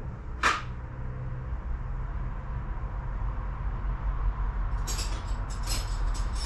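Hand tools on metal under a car's hood: one sharp metallic clink about half a second in, then a quick series of metallic clicks near the end, over a low steady hum.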